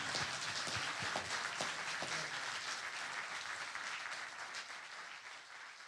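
Audience applauding, a roomful of hands clapping that fades away gradually toward the end.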